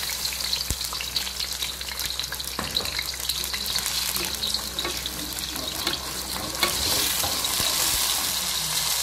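Blended onion sizzling and crackling in hot vegetable oil in a wok, growing louder near the end.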